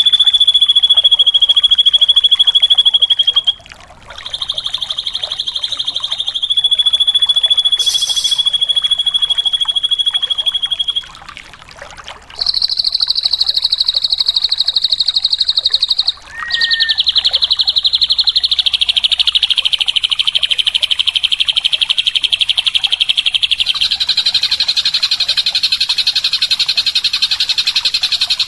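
Drongo (srigunting) singing long, rapid, high trills, each held for several seconds and broken by three brief pauses. The pitch steps up for one phrase after the second pause.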